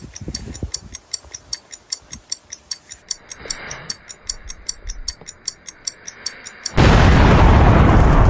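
Steady clock-like ticking, about four or five ticks a second, from an edited intro's sound design. About seven seconds in, a sudden loud, deep boom with a rushing noise cuts in and keeps going.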